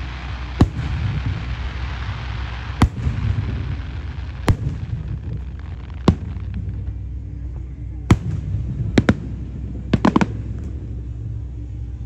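Aerial fireworks shells bursting overhead, one bang every second or two, with a crackling hiss after the first bursts. A quick cluster of three bangs comes near the end.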